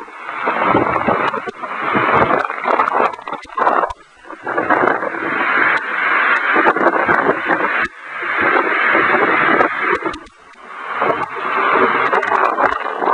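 Heavy storm rain and wind, coming in loud surges that build and drop off every few seconds.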